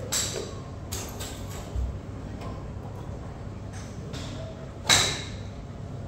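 A golf club strikes a ball about five seconds in, a sharp click with a brief ringing. Fainter clicks come near the start, over a steady low hum.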